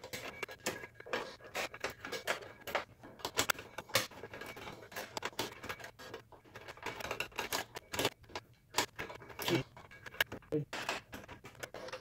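A screwdriver tightening the mounting screws of a CPU heatsink in a Dell Precision T7600 workstation: a run of irregular small metallic clicks and scrapes.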